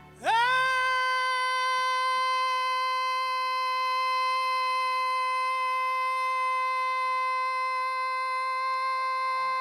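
A male soul singer slides up into one long high note and holds it steady and unbroken. The backing music drops out about a second in, leaving the voice alone.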